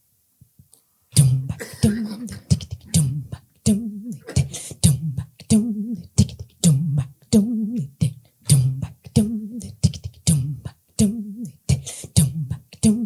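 Vocal beatbox groove: a repeating rhythm of sharp mouth-made drum hits over a low pitched bass tone, starting about a second in.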